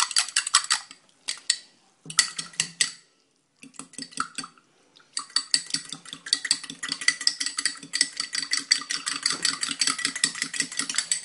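A metal utensil clinking and scraping rapidly against the inside of a small glass cup, mixing a thick egg paste, with the glass ringing. A few short pauses break the clinking in the first five seconds, then it runs on without a break.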